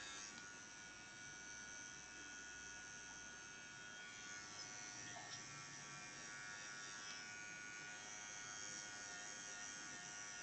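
Electric nail drill (e-file) running with a steady, faint high-pitched whine, its thin bit working the side contour of a natural nail to take off hangnails and dead skin.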